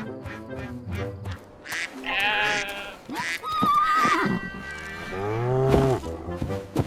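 Farm-animal calls over light background music: a wavering call about two seconds in, a thinner wavering call around the middle, and a longer, lower call just before the end, which is the loudest.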